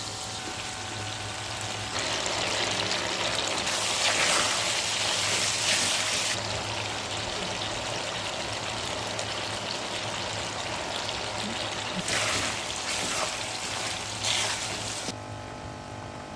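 Chicken and onions sizzling as they stir-fry in a pan: a steady hiss that swells in several louder surges.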